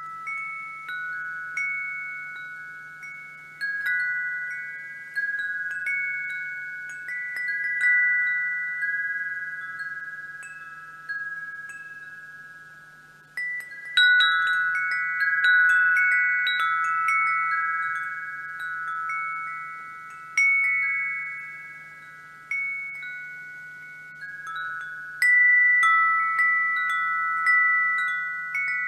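Wind chimes ringing: several metal chimes of different pitches struck at irregular intervals about once a second, each ringing on and fading slowly so the tones overlap, with a busier flurry of strikes about halfway through.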